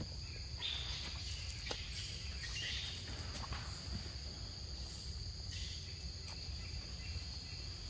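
Steady, high-pitched drone of insects in the surrounding vegetation, with a few short chirping calls over it and a low rumble underneath.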